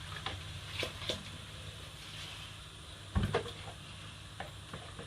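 Cooking pot and utensils being handled: a few light clinks and taps, and one dull thump about three seconds in, over a steady low hum.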